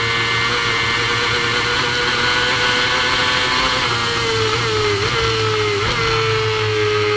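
Supersport racing motorcycle engine held at high revs near full throttle at over 100 mph, heard from an onboard camera over wind rush. The note holds steady, with two brief dips in pitch and quick recoveries in the second half.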